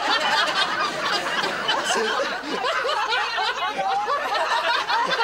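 A small group of people laughing together, several voices overlapping in chuckles and giggles, with a little talk mixed in.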